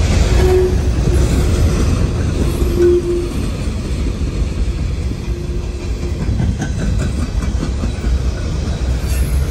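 Freight train of open-top coal hopper cars rolling past close by: a steady rumble of steel wheels on the rails with wheel clatter, and a few short squealing tones about half a second, three seconds and five and a half seconds in.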